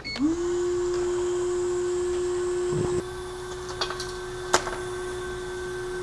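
Hakko hot air rework station switched on with a click, its blower fan spinning up in a quick rising whine, then running at a steady pitch. It gets quieter about three seconds in, and a few light clicks come near the middle.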